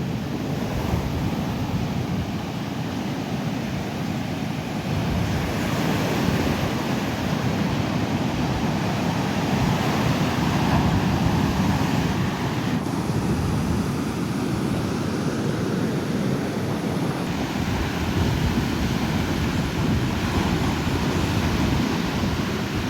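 Ocean surf breaking and washing on a sandy beach, a continuous rush that swells and eases over several seconds, with wind buffeting the microphone.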